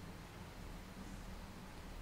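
Faint room tone: a steady low hum under a light hiss, with no distinct sound.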